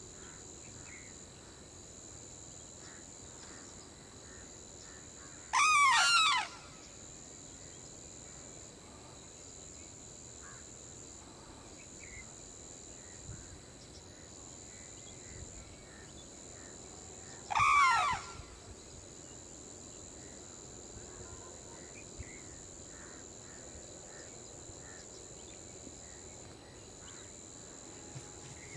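Sarus crane giving two loud calls about twelve seconds apart, the first lasting about a second and the second shorter. A steady high-pitched insect drone runs beneath them.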